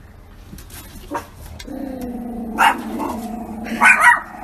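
Small dog growling low and steadily from a little under two seconds in, a warning growl, with sharp barks breaking in: one about two and a half seconds in and two quick ones near the end.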